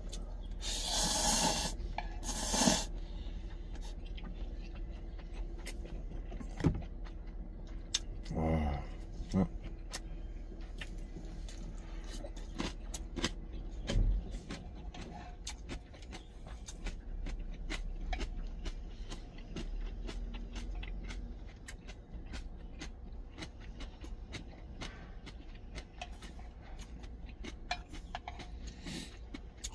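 Ramen noodles slurped loudly about a second in, then chewing and eating noises, with chopsticks clicking against a stainless steel pot. A steady low hum runs underneath.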